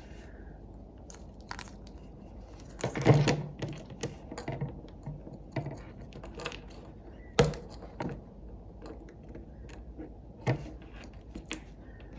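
Small repair tools and fingers working on an opened iPhone X: scattered clicks and scrapes, a louder burst of scraping about three seconds in, and two sharp clicks later on.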